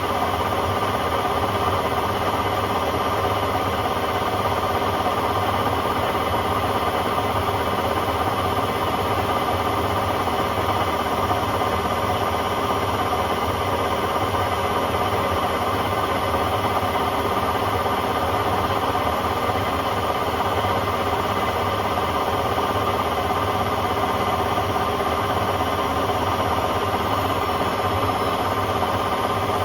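Hotpoint Aquarius WMA50 washing machine spinning a load at a steady speed, loud, with a constant whine and vibration.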